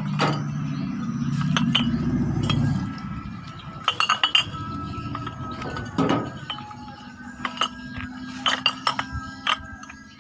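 Green glass bottles clinking against one another as they are packed into a woven sack, with a quick cluster of sharp clinks about four seconds in and several more through the second half. A low steady drone underlies the first few seconds and returns later.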